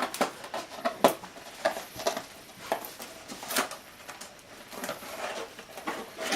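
Irregular clicks, taps and light rattles of hands handling a computer case's plastic packaging and parts.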